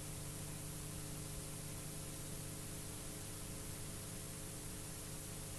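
Steady static hiss with a faint low hum underneath, unchanging throughout: the recording's own background noise, with no other sound.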